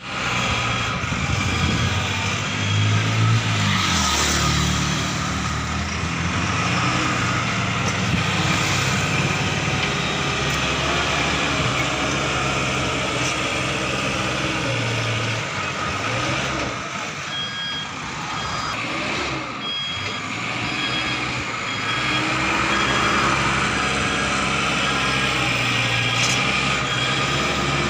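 Caterpillar earthmoving machine's diesel engine running while it levels mud, its drone swelling and easing with the work. A short run of high beeps sounds a little past the middle.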